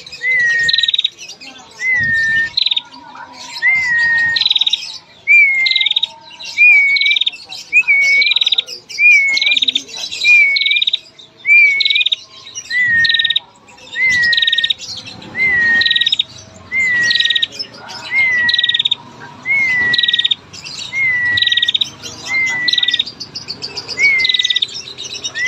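Caged female prinia (prenjak) calling over and over, a little more than one phrase a second. Each phrase is a rapid buzzy trill followed by a short slurred whistle lower down.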